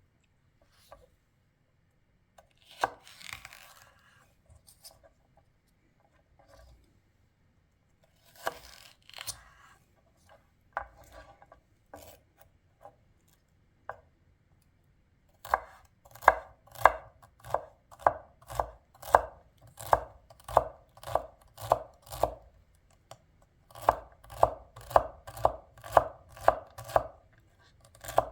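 Knife chopping on a cutting board, steady strokes at about two a second, starting about halfway in after a few scattered knocks and rustles of handling, with a short pause before the chopping resumes.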